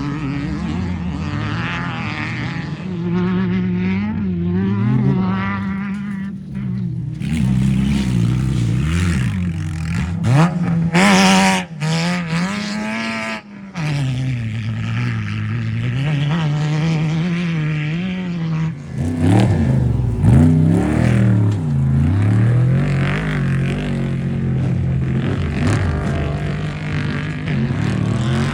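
Off-road race vehicles' engines running and revving, their pitch rising and falling as they pass. The loudest pass comes about ten seconds in, with a rising engine note.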